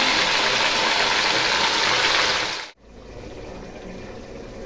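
Paneer pieces sizzling loudly in hot oil in a kadhai. The sizzle cuts off abruptly about two and a half seconds in, leaving a much fainter hiss.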